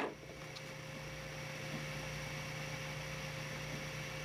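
Steady electrical hum with fan hiss, holding one even pitch, from running equipment in the workshop; a faint tap about half a second in.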